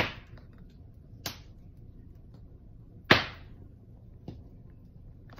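Paper swishes from a picture book's pages being handled close to the microphone: one sharp swish at the start, a smaller one about a second in, and the loudest about three seconds in, each fading quickly.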